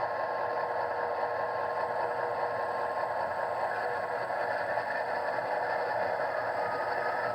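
Sound decoder in an Athearn Genesis P42 model locomotive playing its diesel prime mover running steadily, heard through the model's small onboard speaker.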